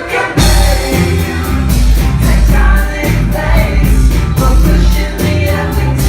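Loud live rock band music with a singing voice over a steady drum beat and heavy bass.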